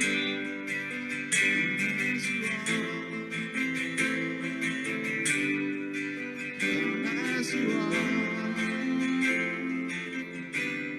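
Acoustic guitar strumming steady chords, the accompaniment of a slow worship song, in an instrumental stretch between sung lines.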